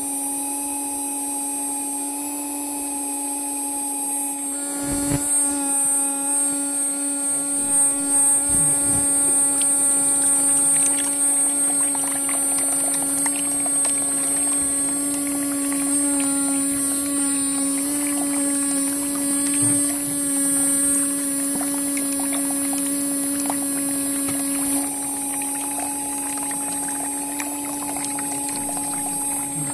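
Small DC motor water pump running with a steady high whine. From about five seconds in, water splashes from the model hand pump's spout.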